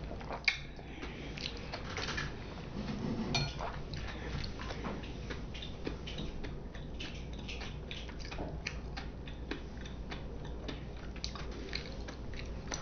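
A person eating sushi: chewing, with many small clicks and taps of utensils against dishes, one sharper click about half a second in.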